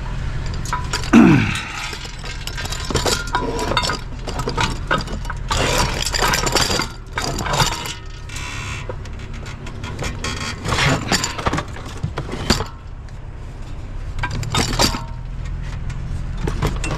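Irregular clinks, clanks and rattles of scrap parts, including loose fan blades, being handled and loaded. A brief falling squeak about a second in is the loudest sound, and a steady low hum runs underneath.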